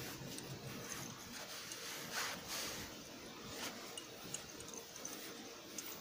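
Nekojasuri file-style grooming brush stroking through a cat's fur: soft rubbing, scraping strokes, one louder stroke about two seconds in.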